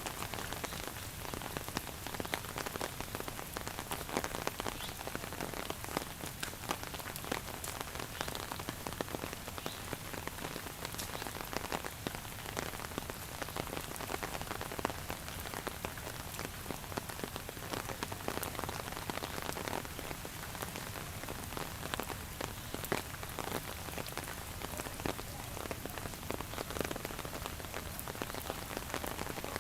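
Steady rain falling, with many close drops ticking sharply on a surface.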